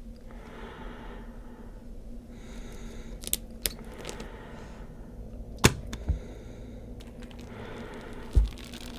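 Horror-film sound design: slow, heavy breathing with a few sharp clicks and snaps, the loudest about halfway through, and dull low thuds, over a low steady hum.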